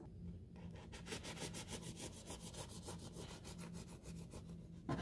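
Serrated bread knife sawing through a soft, freshly baked bread roll on a wooden cutting board: a faint, rapid, even rasping.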